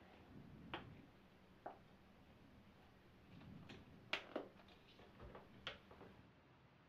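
Near silence with about half a dozen faint clicks and taps from handling a flip-top toothpaste tube and toothbrush at a bathroom sink.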